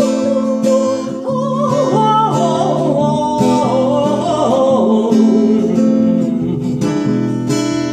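Acoustic guitar accompaniment with a woman singing a wordless 'o-o-ou-ou' vocalise, her pitch gliding up and down between the chorus and the next verse.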